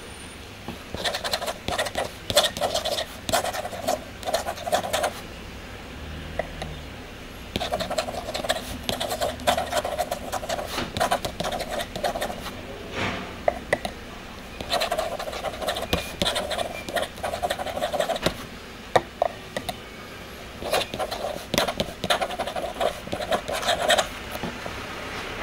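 Metal pen nib scratching across paper as cursive is written in ink, in four spells of a few seconds each with short pauses between, each spell made of quick, sharp strokes.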